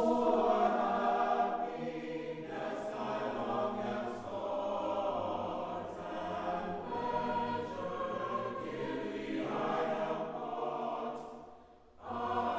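A choir singing. The singing fades out near the end, and after a brief silence sound starts again.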